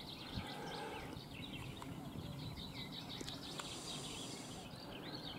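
Faint birdsong: many small birds chirping and twittering continuously, with a brief high hiss about four seconds in.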